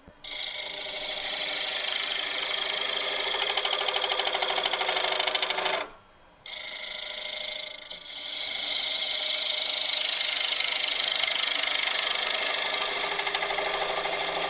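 Lathe gouge cutting the inside of a spinning butternut bowl, a steady scraping, rushing cut with shavings coming off. The cut breaks off about six seconds in and resumes a moment later.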